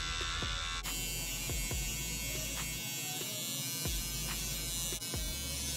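Electric hair trimmer buzzing steadily as it is slid up and down along the hairline behind the ear, with light ticks now and then.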